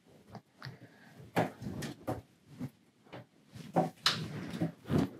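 Lenormand cards being dealt from the deck onto a table: a string of irregular soft taps and slides as the cards are pushed off the pile and set down one after another.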